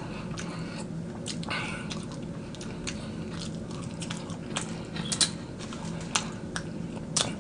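A person chewing and biting hot wings, with scattered wet mouth clicks and smacks, over a steady low hum.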